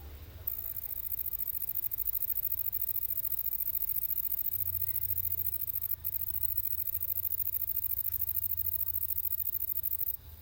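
Grasshopper stridulating: a high-pitched, rapidly pulsing buzz that starts about half a second in, breaks off for an instant near the middle, then carries on and stops just before the end.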